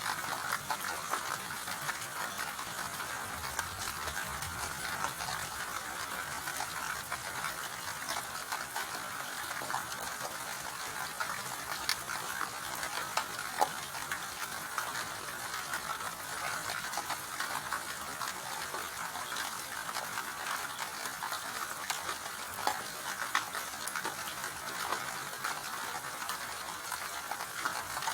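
Steady rain falling, with many individual drops tapping sharply through the even hiss of the downpour.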